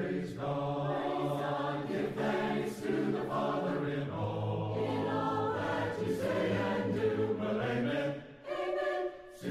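A choir singing a hymn unaccompanied, in slow held chords; the singing drops away briefly near the end.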